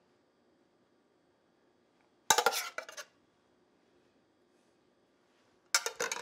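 A metal serving spoon clinks and scrapes against dishware as mushrooms are spooned out, in two short bursts: one about two seconds in, lasting under a second, and a shorter one near the end.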